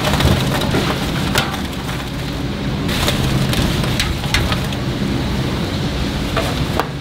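Oil sizzling steadily as chicken pieces deep-fry, with scattered sharp knocks of utensils against metal.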